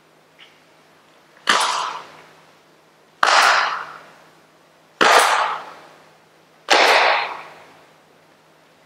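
Four sudden, loud bursts from a tai chi performer's forceful movements, evenly spaced about every 1.7 seconds. Each one rings off briefly in a large hall.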